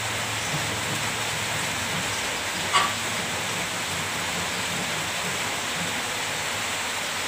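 Steady background hiss with one short click about three seconds in.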